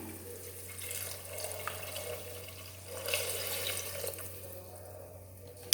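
Coconut milk being poured from a glass into a pressure cooker over rice, an uneven splashing pour. A sharp knock comes at the very end.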